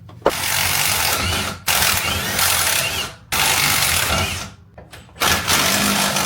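Pneumatic air tool running in four bursts of about a second and a half each, with short pauses between, on a stuck part that won't let go.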